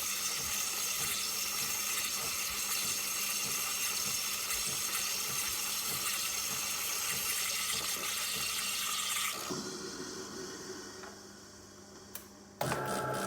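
De'Longhi Dinamica fully automatic espresso machine dispensing: a steady hiss of flowing liquid with a faint regular pulse about twice a second. It fades out about three-quarters of the way through, and near the end it cuts abruptly to a steady low hum.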